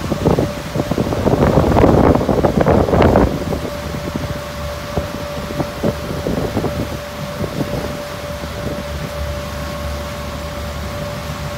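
A boat's engine running steadily under way, heard as a low drone with a thin steady hum. Wind buffets the microphone loudly for about the first three seconds, then drops away.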